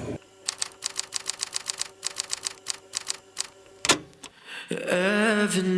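Typewriter keys clacking in a quick even run, about six or seven strokes a second for some three seconds, then one heavier strike; a typing sound effect over a title card. A voice comes in near the end.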